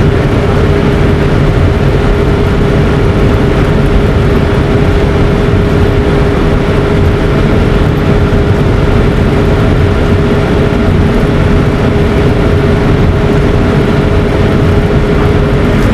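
A motor running at a steady speed: a constant hum over loud rushing noise, with no change in pitch or level.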